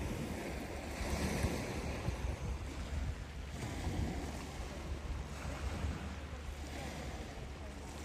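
Small sea waves washing in over a pebble beach in slow surges, with wind rumbling on the microphone.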